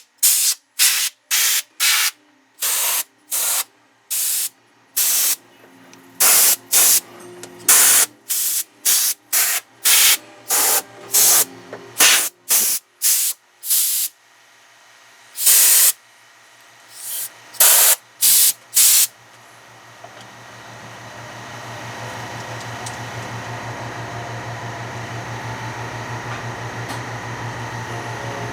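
A run of short, sharp spray hisses, about twenty quick blasts unevenly spaced over the first nineteen seconds. After that a steady machine hum with a low drone fades in and holds.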